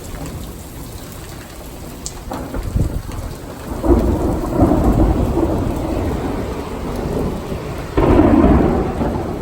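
Heavy rain pouring down steadily while thunder rumbles in about four seconds in, then a sudden loud clap of thunder near the end.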